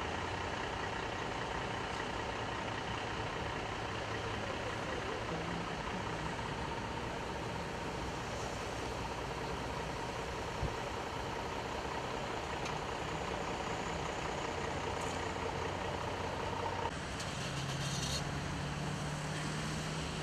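Truck engines idling, a steady hum over a constant wash of noise; the hum changes pitch about three seconds before the end.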